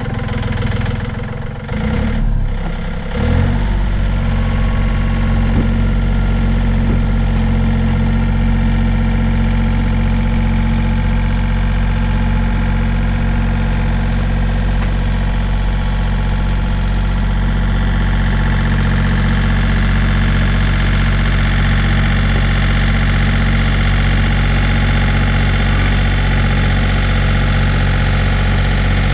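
John Deere compact tractor's diesel engine running under load as its front loader pushes a floating dock down the bank. A few knocks come in the first seconds as the engine grows louder, then it holds a steady note.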